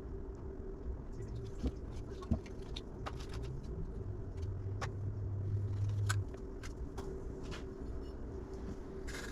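Scattered light clicks and taps of metal parts being handled while a front wheel hub is assembled, over a steady workshop hum. A louder low drone comes in about four and a half seconds in and stops about two seconds later.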